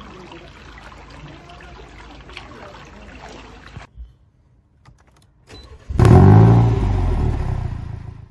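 A few seconds of low background noise, then a push-button-start car engine: about six seconds in the engine fires with a brief rev that falls back and fades away.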